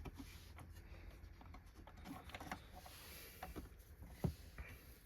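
Faint scattered clicks and taps of vacuum cleaner parts being handled, with two sharper clicks near the end.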